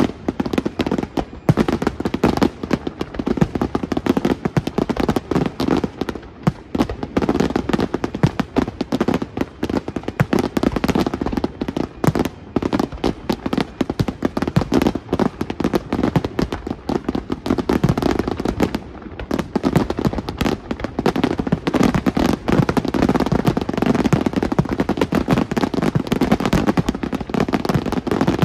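A fireworks display at full pace: aerial shells bursting in a rapid, overlapping string of bangs with crackle between them. There is a brief lull a little past two-thirds of the way in.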